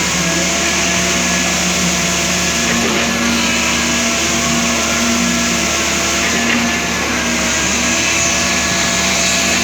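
Heavy construction machinery running steadily at a concrete pour. It makes a loud, continuous engine-like drone whose pitch shifts up and down slightly several times, over a constant noise.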